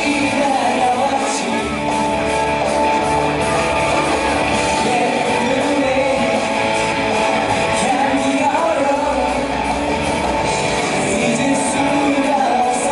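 Live band playing a pop-rock song with electric guitars and bass, a male singer on the lead vocal.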